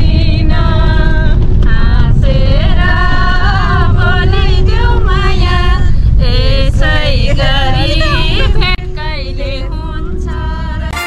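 A woman's singing voice carrying a song with wavering, ornamented pitch, over the steady low rumble of a moving minibus's engine and road noise. It turns quieter about nine seconds in.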